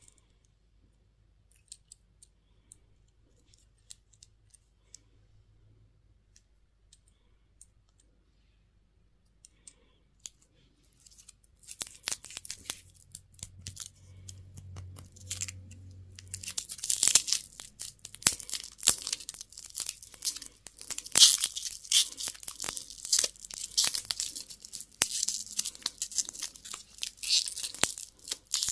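Candy packaging being torn open and crinkled by hand. A few faint clicks come first, then about twelve seconds in the crackling and tearing starts, getting louder and denser from about seventeen seconds.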